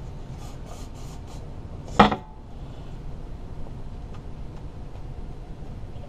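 Aerosol spray paint can giving a quick run of about five short hissing spurts, spraying paint into a cup. Then a single loud knock about two seconds in.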